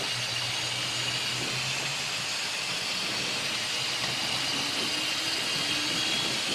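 Cessna Citation XLS's twin turbofan engines heard from the cockpit as thrust comes up for the takeoff roll: a steady whine over a rush of noise, with a faint tone rising in pitch over the second half as the engines spool up.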